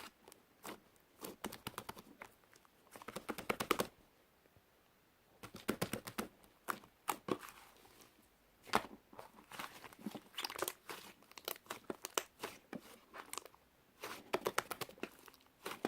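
Pink slime being pressed and pulled by hand, making bursts of small crackling pops and tearing sounds, with a short pause about a quarter of the way in.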